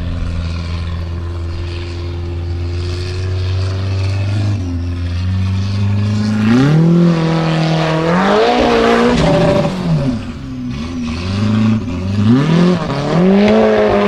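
Formula Offroad buggy's engine running at a steady pitch for about four seconds, then revving hard, its pitch climbing and falling again and again as the buggy claws up a steep dirt slope under heavy load.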